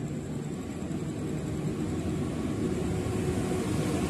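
Argo Cheribon intercity passenger train approaching the platform, a low rumble that grows steadily louder.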